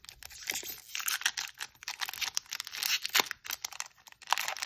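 Foil wrapper of a Magic: The Gathering collector booster pack crinkling and tearing as fingers work it open, in irregular crackles and rustles with a louder crackle about three seconds in.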